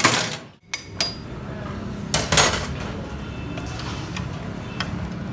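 Metal tools and pump parts clanking and knocking: a loud knock right at the start, a shorter one about a second in, then a longer scraping clatter around two seconds in and a few light ticks. A steady low hum runs underneath.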